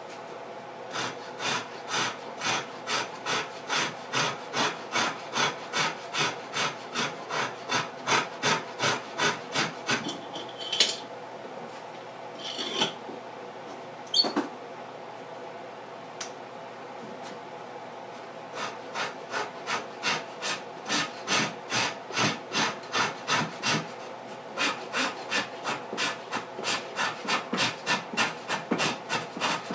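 Hand rasps of the "cheese grater" kind filing the wooden guitar body, rounding off its corner at the neck joint, in regular back-and-forth strokes about two a second. Near the middle the rasping stops for several seconds, with a few knocks and one sharp click, then starts again.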